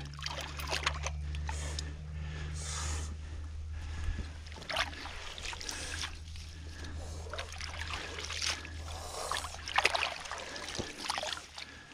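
Hands sloshing and splashing in shallow pond water while a body-grip trap is bedded and leaves and sticks are moved around it, in short irregular bursts. A steady low hum runs underneath and fades after about the first ten seconds.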